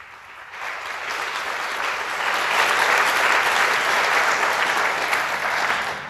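Audience applauding, building up about half a second in, loudest in the middle and dying down near the end.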